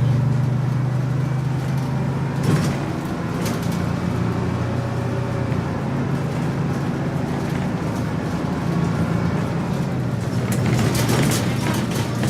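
Bus engine running steadily with a low hum, with a couple of sharp rattles or knocks a few seconds in and a cluster of rattling near the end.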